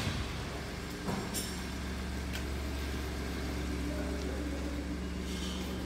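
A 2016 Ford F-150's 3.5L EcoBoost twin-turbo V6 idling steadily.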